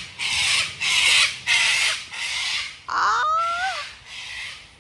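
A bird giving a run of harsh, raspy caws, about two a second, with a short gliding whistled note about three seconds in.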